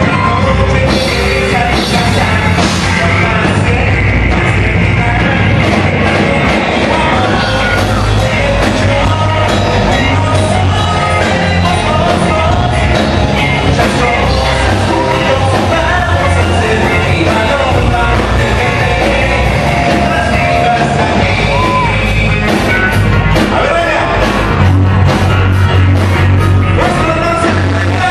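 A live rock band playing loud: a singer over electric guitars, bass and drums.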